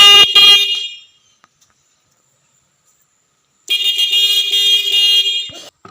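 12 V electric bike horn switched by an Arduino-driven relay, sounding in a patterned rhythm meant to mimic a crow's 'kak kak' call. One blast dies away about a second in; after a pause of nearly three seconds a second blast of about two seconds follows, broken by short gaps.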